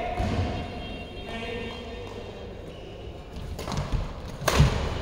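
Badminton play resuming on a court: a few knocks of feet on the court, then a sharp hit of a racket on the shuttlecock about four and a half seconds in, the loudest sound.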